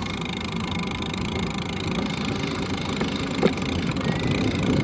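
Wind buffeting and tyre rumble on a bicycle-mounted camera while riding on pavement, with a single sharp click about three and a half seconds in.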